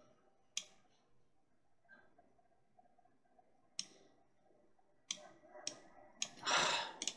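Computer mouse clicks: single sharp clicks spaced a few seconds apart, then several in quicker succession near the end, with a short soft burst of noise among them.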